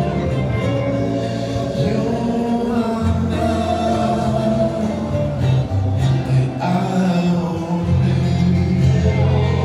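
Music with a group of voices singing together in long held notes over a steady bass.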